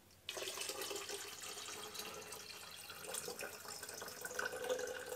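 Water pouring steadily from a jug into a tall graduated cylinder, starting about a quarter second in: topping up concentrated film developer with water to its 500 ml working dilution.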